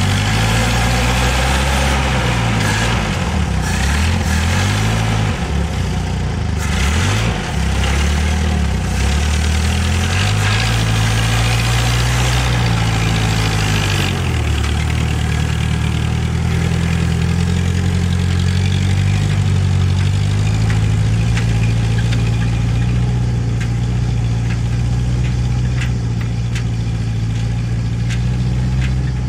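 GAZ-69 jeep's four-cylinder petrol engine running as the loaded jeep manoeuvres, its pitch rising and falling through the first half, then running at a steady speed.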